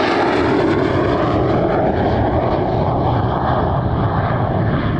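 MiG-17F jet fighter's afterburning VK-1F turbojet, loud and steady as the jet passes and draws away in afterburner. A phasing sweep dips and then rises in pitch over the first couple of seconds.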